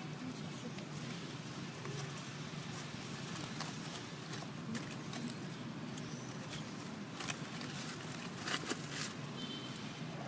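Outdoor ambience: a steady faint hiss with scattered light clicks and rustles, and a cluster of sharper clicks about three quarters of the way through.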